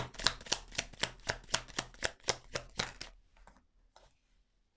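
A deck of tarot cards being shuffled by hand: a quick, even run of card slaps, about four a second, stopping about three seconds in.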